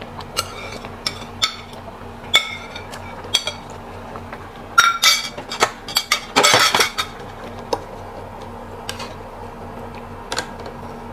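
Stainless steel ladle and tongs clinking against a wire mesh strainer and the metal stock pot, with scattered single clinks and a denser, louder clatter about five to seven seconds in. A faint steady hum runs underneath.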